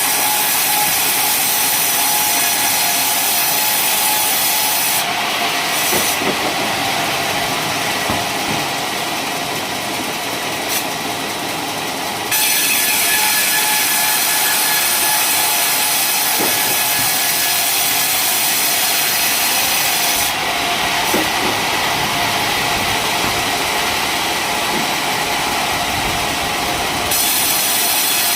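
Homemade sawmill sawing coconut-palm wood: a loud, steady, hissing saw noise. Its sound changes for a few seconds twice, from about 5 to 12 seconds in and from about 20 to 27 seconds in.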